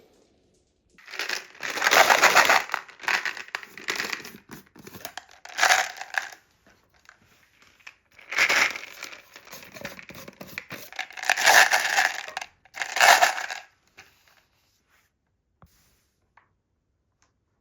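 Marbles rolling and clattering down a wooden HABA marble run, in several rattling runs that come and go, falling quiet about fourteen seconds in.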